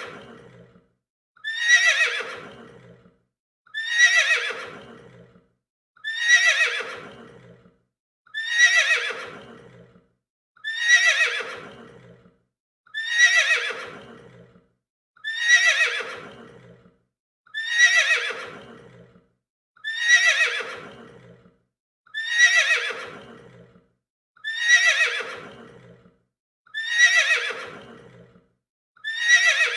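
A horse neighing: one whinny that starts high and slides down in pitch, repeated identically about every two seconds.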